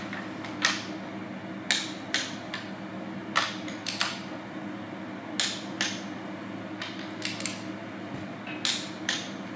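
Torque wrench clicking and ratcheting as the connecting-rod cap nuts of a 1936 Ford flathead V8 are torqued down: sharp, irregular metallic clicks over a steady low hum.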